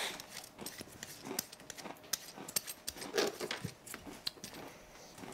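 Irregular clicks, taps and short scrapes of kitchen prep: utensils working vegetables on a cutting board and things set down on the counter.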